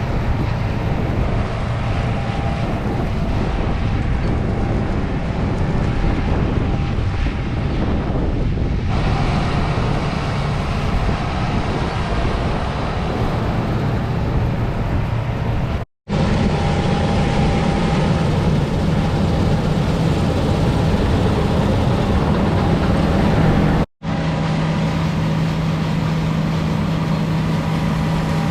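Heavy diesel harvest machinery running steadily in a wheat field, with a constant low engine hum. The sound cuts out for a split second twice.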